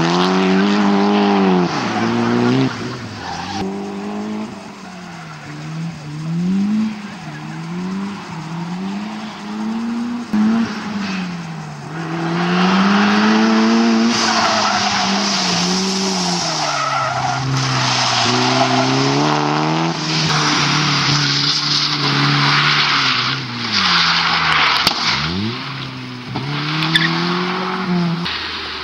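Mitsubishi Lancer Evolution's turbocharged four-cylinder engine revving hard, its pitch climbing and dropping again and again as the driver works it through the gears. Tyres squeal and skid through the slides, loudest in the second half.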